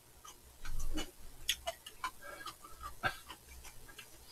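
Eating sounds: chewing and scattered light clicks of chopsticks and a spoon against bowls, with one fuller mouth sound just under a second in.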